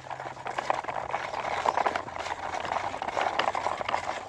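Plastic toy dump truck loaded with bricks, dragged on a string across dry, gritty dirt: its wheels roll and scrape over the grit with dense, irregular clicking and rattling.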